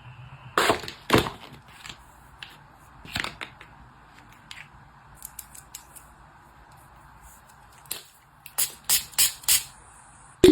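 Hands handling items: scattered short sharp clicks, taps and crinkles, with a quick run of four or five near the end.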